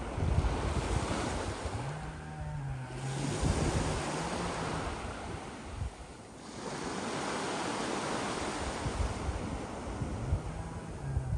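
Sea waves surging and washing up a pebbly beach, then drawing back, with a lull about six seconds in before the next wave comes in. Wind buffets the microphone throughout.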